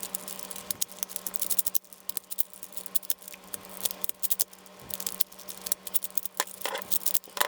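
Gear Shift twisty puzzle being turned rapidly to scramble it: a quick, irregular run of plastic clicks and rattles from its turning pieces and gears.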